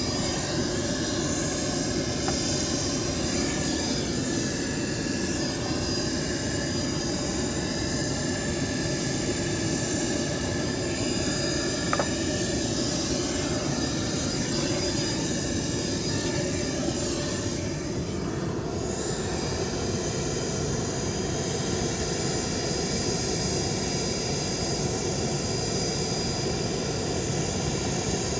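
Business jet's turbofan engines running at a steady low power, with a constant rush and a high whine. The whine briefly dips and shifts pitch after about eighteen seconds.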